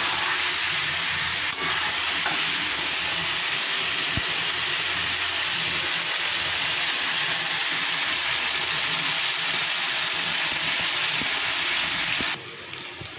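Mutton pieces and spice paste sizzling in hot oil in a kadai as they are fried and stirred with a wooden spatula (kosha), a steady hiss with a faint click or two; the sizzle drops away suddenly near the end.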